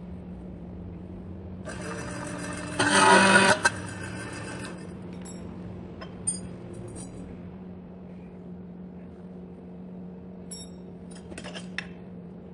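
6 mm steel round bar being worked in a workshop: a loud burst of noise about two seconds in, loudest for about a second, then scattered light metallic clinks of the steel rods with a short ring, a quick run of them near the end, over a steady low hum.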